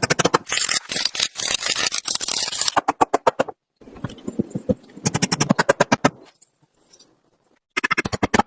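Rapid runs of sharp knocks or taps, many a second, in three bursts with short breaks between them.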